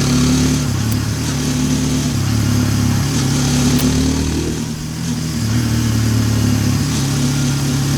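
Hero Xtreme 160R 4V's single-cylinder engine running as the motorcycle is ridden in traffic, its pitch shifting in steps with the throttle, easing off a little past the middle and picking up again.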